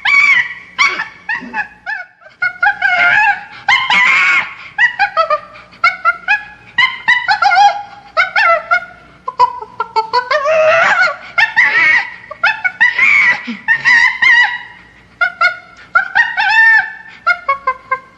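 Chimpanzee screaming: a rapid, unbroken run of short, shrill squealing calls, two or three a second, each sliding up and down in pitch.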